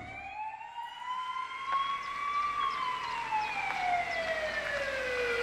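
Police car siren wailing: its pitch rises slowly for about two and a half seconds, falls slowly until near the end, then begins to rise again.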